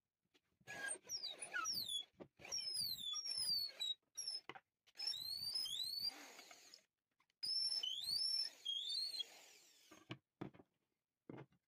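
Long drill bit squealing against the wood inside a hardwood block's bored hole as the block is worked along it, in four rough bursts of rising and falling squeals. A couple of short light knocks follow near the end.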